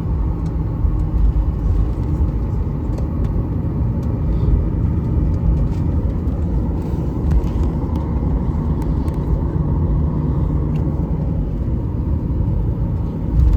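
Steady low rumble inside an airliner cabin as the plane taxis on the ground, with a low hum from the engines.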